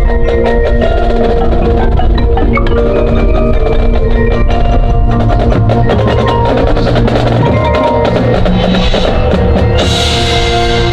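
Marching band playing, with sustained chords under struck mallet percussion such as marimba and glockenspiel, and drums. A bright, noisy swell enters near the end.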